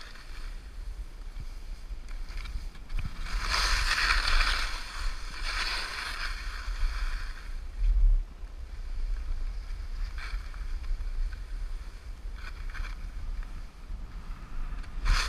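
Atomic skis swishing and scraping through snow in a series of turns, over a steady low rumble. A short low thump about eight seconds in is the loudest moment.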